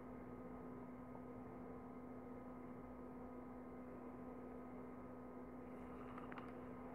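Faint, steady electrical hum with a low tone: room tone and no other activity. A few faint ticks come near the end.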